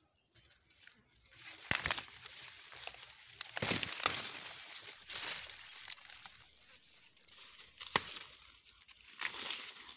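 Maize leaves and stalks rustling and crackling as the plants are handled, with a few sharp snaps. A faint high chirp repeats about six times midway.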